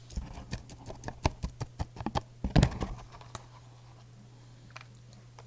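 Close-miked crunchy chewing of crispy breaded pork cutlet: a quick run of sharp crackles, about four or five a second, that stops about three and a half seconds in. A steady low hum lies underneath.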